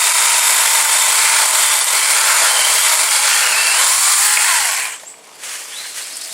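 Saker 20V mini cordless electric chainsaw cutting through a branch about 2.5 inches thick, its chain biting into the wood with no sign of bogging down; the cutting stops about five seconds in.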